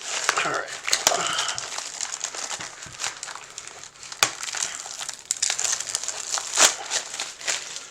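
Plastic shrink wrap on a trading-card booster box crinkling and crackling as it is stripped off and crumpled by hand, in a dense run of irregular crackles.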